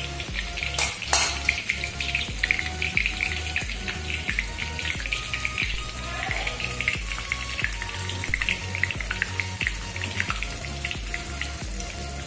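Grated raw banana shreds deep-frying in hot oil, a continuous crackling sizzle of many tiny pops as they crisp, over background music with a steady beat. A couple of sharp knocks about a second in.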